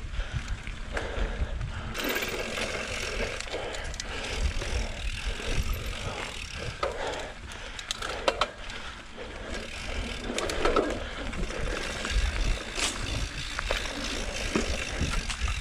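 Mountain bike riding fast over dirt singletrack: tyres rolling on the trail and the bike rattling and knocking over bumps, over a steady low rumble.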